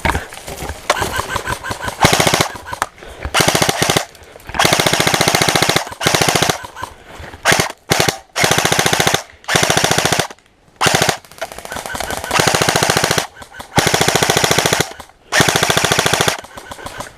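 Airsoft electric guns firing repeated full-auto bursts: about a dozen rapid rattling strings of half a second to a second and a half each, with short pauses between.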